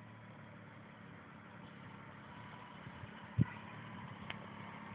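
Isuzu Rodeo SUV's engine running at low speed as it crawls over rough dirt, a steady low hum growing gradually louder as it approaches. A brief low thump about three and a half seconds in.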